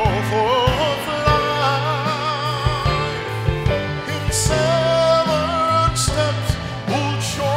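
A male voice sings a worship song through a microphone, holding long notes with a wavering vibrato, over instrumental backing with a steady low bass.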